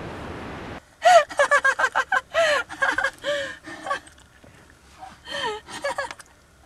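A young woman's voice giving a rapid run of short, high-pitched cries and gasps, then a few more cries near the end. Before that, a steady rushing noise cuts off suddenly about a second in.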